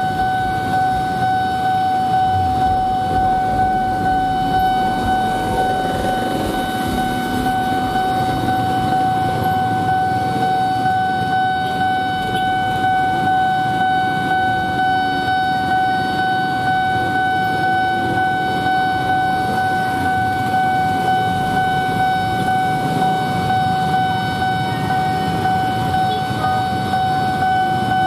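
Railway level-crossing warning signal sounding a steady high tone without a break, over the low rumble of idling motorcycle and car engines waiting at the crossing.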